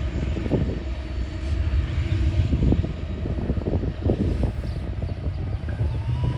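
Loaded coal hopper cars of a slow freight train rolling past: a steady low rumble with irregular clanks and knocks from the wheels on the rails.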